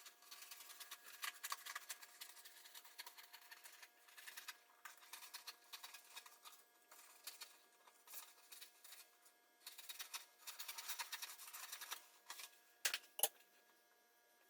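Faint, irregular scraping and clicking of hand work on a countertop being resurfaced, with two sharp knocks near the end.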